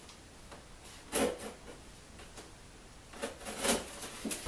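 A knife cutting and scraping at a cardboard shipping box as it is pried open: one brief scrape about a second in, then several short ones in quick succession near the end.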